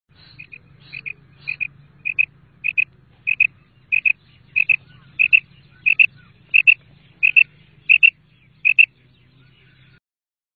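Female common quail calling: a short double note repeated about once every two-thirds of a second, some fourteen times, growing louder over the first few seconds. A faint low hum runs underneath.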